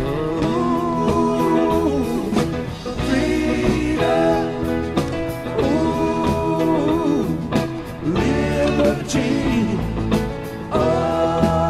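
Background music: a song with a singing voice over instruments.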